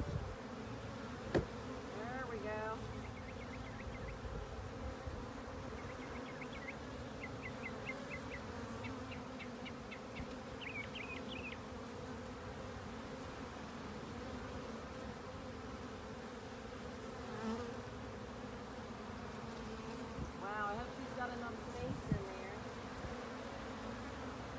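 Honeybees buzzing in a steady low drone around the open hives. Brief runs of high chirps come over it, and there are two sharp knocks, the louder about a second in and a smaller one near the end.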